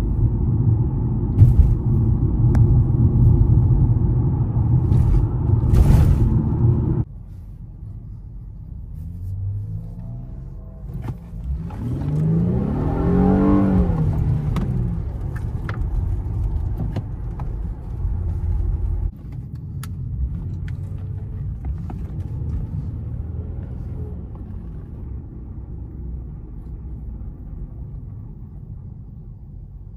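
Car engine and road rumble from a moving car, in edited pieces that cut off abruptly twice. About halfway through, the engine revs up and back down.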